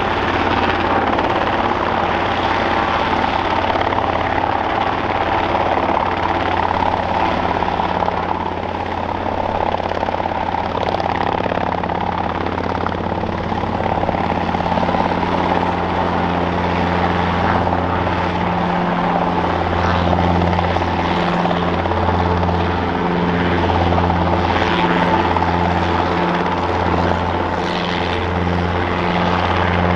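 Robinson R22 Beta II helicopter, its four-cylinder Lycoming piston engine and two-blade rotor running at take-off power as it lifts off into a low hover. A steady drone, with a slow low pulsing in the rotor sound setting in about two-thirds of the way through.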